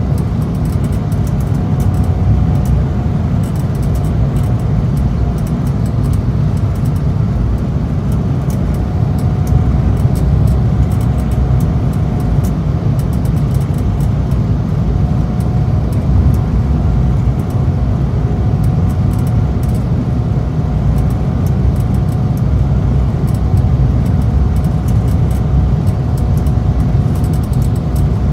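Cabin noise inside an Embraer E190 jet airliner in flight: a steady low rumble of its General Electric CF34 turbofan engines and airflow, with a faint steady hum above it.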